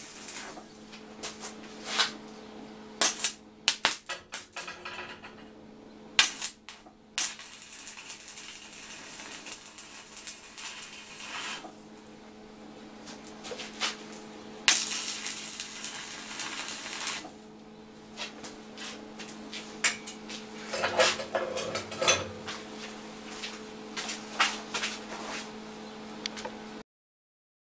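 Stick arc welding on mild steel rod: the arc crackles and hisses in several stretches of a few seconds each, with sharp metal clinks and taps on the steel plate between them over a steady low hum.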